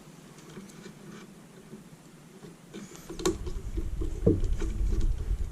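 Faint clicks of hands handling the monitor's parts. About three seconds in comes a sharp click, then a low rumble with light knocks as the unit is moved and pressed.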